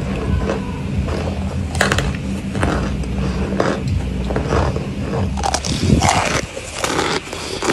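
Crunchy chunks of cornstarch being chewed, a crisp crunch about every second, over a steady low hum. About five and a half seconds in the hum stops and louder, denser crunching follows as a chunk of cornstarch is crumbled in the hand.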